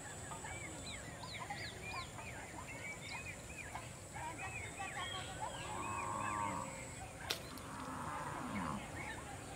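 Many birds chirping and calling around the paddy field in short, repeated arched chirps, over a steady high-pitched tone. A single sharp click comes just after seven seconds in.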